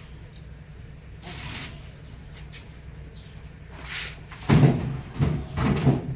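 Knocks and thuds of parts being handled and fitted, in a cluster of loud blows in the second half, over a low steady hum.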